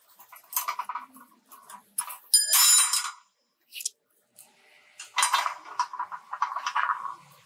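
Rebar being tied with tie wire and a hooked tying tool: short metallic clinks and scraping of wire against steel bars, in two runs. About two and a half seconds in comes a louder, ringing clink of steel.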